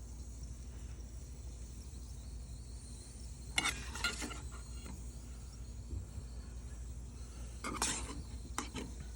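Two short bursts of utensil scraping and clinking against dishes, about three and a half seconds in and again near the end, over a steady low hum.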